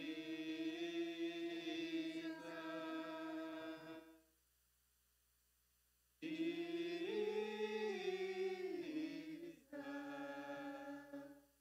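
A small choir singing unaccompanied long held notes on the word 'Jesus', in three drawn-out phrases, with about two seconds of silence after the first; the middle phrase bends up in pitch and back down.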